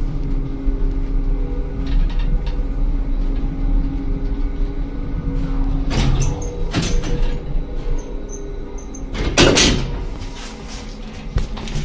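Old lift car travelling up its shaft, its motor giving a steady hum while the car rattles. There are clatters about six and seven seconds in, and a louder clunk about nine and a half seconds in, after which the hum eases.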